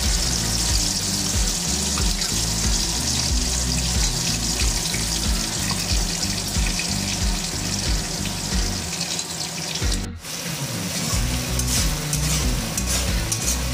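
Chopped onions sizzling in hot oil in a metal kadai, a steady hiss. After a brief drop about ten seconds in, a spatula stirs them, with light scraping and clicking against the pan.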